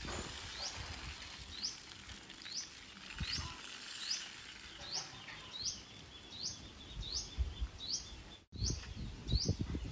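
A small bird repeating a short, high chirp at a steady pace, somewhat more than once a second, over gusts of wind rumbling on the microphone.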